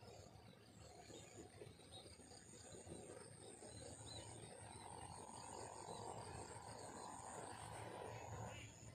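Near silence: faint outdoor background noise with a low rumble, and a faint steady hum from about halfway through.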